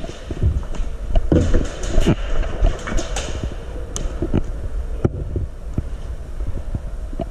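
Footsteps on a concrete floor and gear knocking as an airsoft player moves quickly, a run of irregular thumps and sharp clicks over a low rumble.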